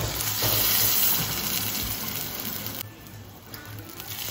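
Water pouring in a steady stream into the pot of sautéed chicken and spice paste for the opor, stopping sharply about three seconds in, with a quieter pour near the end.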